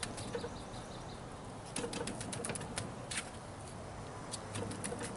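Plastic shaker of dry barbecue rub shaken over a rack of pork ribs: rapid rattling clicks of the seasoning, in two short spells.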